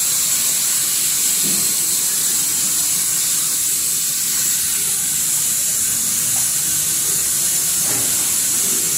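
Steady, loud hiss of running blow molding machinery and its bottle conveyor line, concentrated high in pitch and unchanging throughout.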